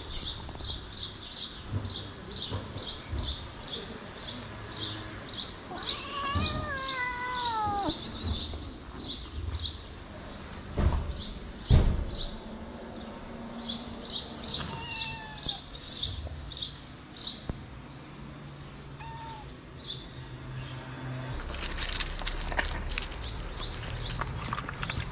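A kitten meows, one drawn-out falling meow about six seconds in and a fainter one around fifteen seconds, over a high bird chirp repeating about three times a second. Near the end, cats crunch dry food from their trays.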